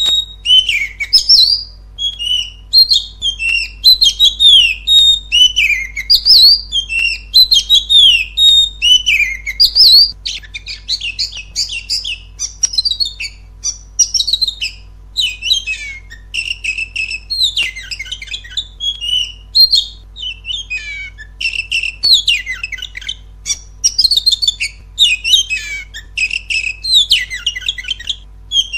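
Oriental magpie-robin (kacer) in loud, full song: a continuous string of varied whistled phrases and rapid sweeping notes, one after another with barely a pause, turning into denser trills about a third of the way in.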